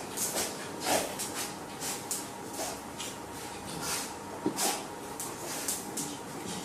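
A dog's short breathy huffs, coming irregularly about one or two a second.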